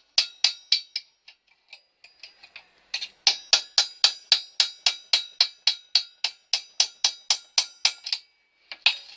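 Rapid, evenly spaced metal taps with a ringing tone from work on a bicycle's cup-and-ball bottom bracket as it is tightened. A few taps at the start, then a long run of about twenty, about four a second, from about three seconds in.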